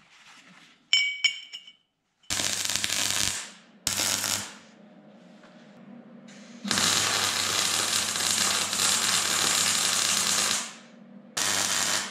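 MIG welding on steel: a couple of metal clinks about a second in, then four bursts of welding-arc crackle and hiss with a low hum from the welder. Three bursts are short tacks and one is a run of about four seconds.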